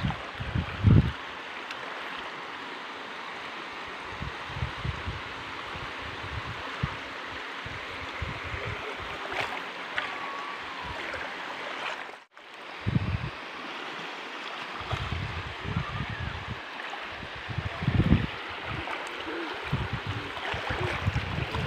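Shallow seawater washing and lapping, with wind buffeting the microphone in gusts. The sound cuts out for a moment about twelve seconds in.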